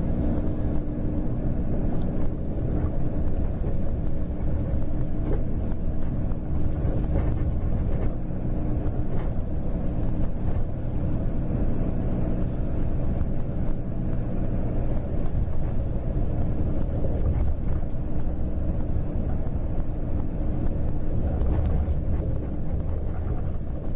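Double-decker coach's diesel engine running steadily under way, with road and wind noise; a faint steady hum in it weakens about ten seconds in.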